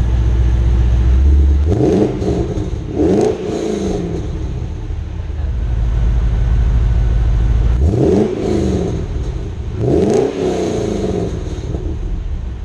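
Holden Commodore SS ute's LS V8 with its catalytic converters replaced by a free-flowing pipe, heard at the exhaust tip. It idles with a deep rumble and is blipped four times, in two pairs, each rev rising and falling back to idle.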